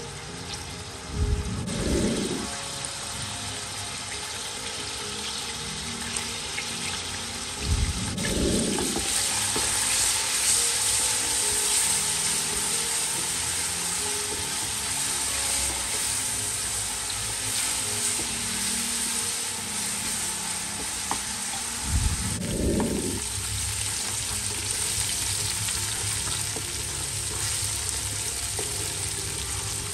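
Chopped onion and ginger sizzling in hot oil in an aluminium pressure cooker, a steady hiss, stirred with a wooden spoon. A low thud sounds three times.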